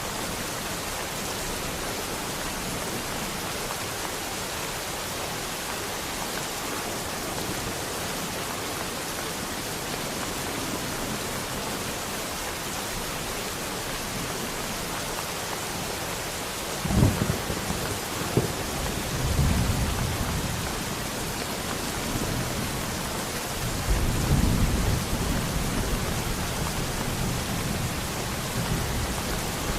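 Steady rain falling throughout. About halfway through, a sharp thunder crack is followed by low rumbling, and a second long roll of thunder comes near the end.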